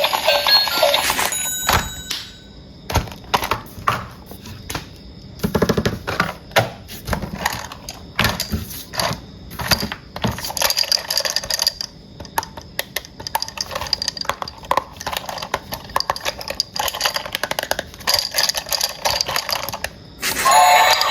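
Plastic toys and packaging being handled: irregular clicks, taps and knocks, with a short rattling stretch about six seconds in.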